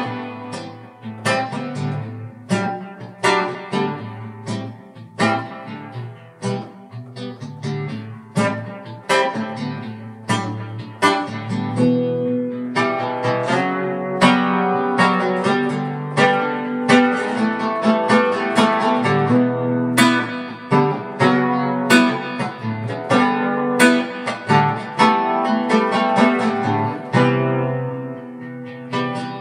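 Solo guitar playing an original instrumental piece: plucked notes ringing over one another, with a firm accent about once a second.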